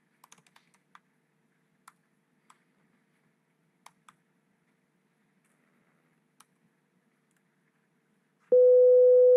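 A few faint laptop keyboard clicks, then near the end a loud, steady sine-wave tone of about 500 Hz starts abruptly and holds: a CORDIC vector-rotation oscillator written in SOUL producing a pure sine wave.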